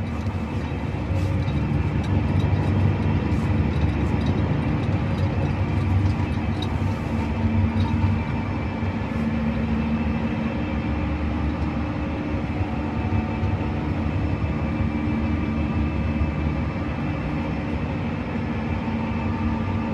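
Inside the cab of a John Deere 8RX 410 four-track tractor cruising on tarmac at about 43 km/h: a steady engine hum over the low rumble of its rubber tracks on the road.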